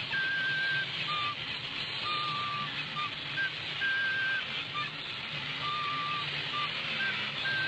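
A simple high tune on a flute, two notes alternating in long held notes and short ones, over a steady low whirr and hiss from the walking tin toy robot.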